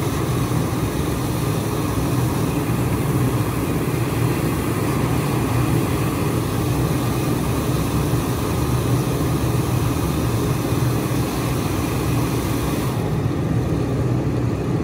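Fire engine running steadily at pump, supplying a hose line, with a low, even drone. A higher hiss over it fades about two seconds before the end.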